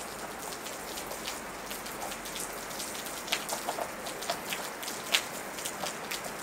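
Steady rain falling, an even hiss broken by many sharp individual drop hits on a nearby surface, one notably louder drop a little past five seconds in.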